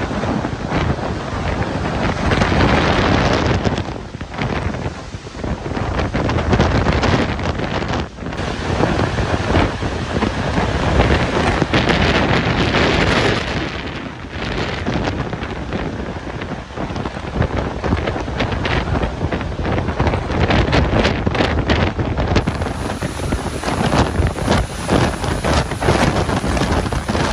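Hurricane-force wind gusting hard across the microphone, with driving rain. The wind noise eases for a moment a few times and surges back.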